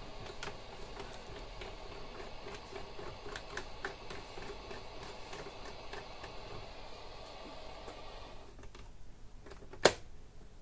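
Unitra Diora Śnieżnik R 502 radio hissing on the FM band with faint ticks as its tuning knob is turned, the static never changing and no station coming in: the set's FM tuning is out of alignment after a failed attempt to retune it. The hiss cuts off about eight and a half seconds in, and a single sharp click follows near the end.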